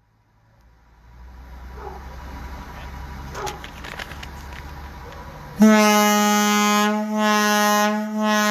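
The firehouse's rooftop air horn, over 60 years old, sounds a loud, steady, low blast rich in overtones. It starts abruptly about five and a half seconds in and dips briefly twice. Before the blast there is only a steady background rumble and hiss.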